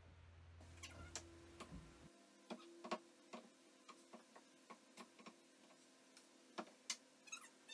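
Hammer tapping a chisel to chip at the old tile wall: irregular, fairly faint sharp taps, about one or two a second. Near the end, a quick run of high chirps starts.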